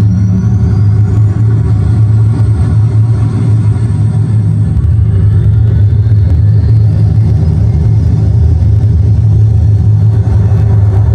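RC model engine-sound module playing a simulated Messerschmitt Me 262 jet engine through its speaker. A steady low rumble, with a high whine that climbs during the first couple of seconds as the jet spools up and then holds.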